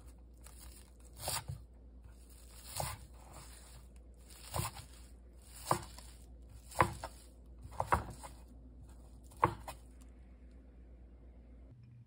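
Chef's knife slicing through bundled dallae (Korean wild chives) onto a wooden cutting board: separate crunching cuts, each ending in a knock on the board, about one a second, about seven in all, stopping near the end.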